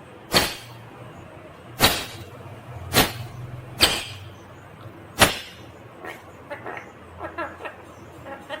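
Ringneck parakeet giving five short, sharp, loud screeches about a second apart, followed by softer, quicker chattering.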